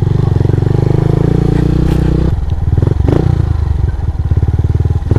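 Motorcycle engine running at low speed on a rough dirt trail, its even firing pulses clear throughout. The engine note drops about two seconds in, and there are a few light knocks.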